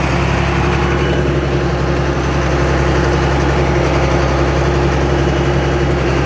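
John Deere tractor engine running steadily while driving a Krone large square baler, with an even, unchanging pitch.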